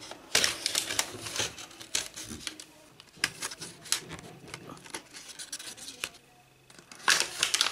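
Hard plastic toys being handled: a run of irregular sharp clicks, knocks and scraping, with a quieter pause about five and a half seconds in.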